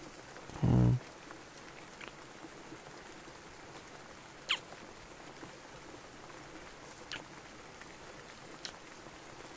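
Close-up soft kisses: a few separate wet lip smacks spaced a couple of seconds apart, over a steady bed of rain. About a second in comes a short low hum, the loudest sound here.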